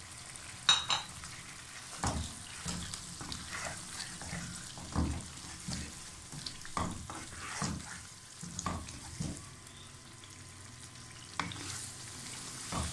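A wooden spoon stirring and scraping meatballs through thick gravy in a nonstick frying pan, in irregular strokes, with a sharp click about a second in. Under it the masala sizzles faintly in its oil.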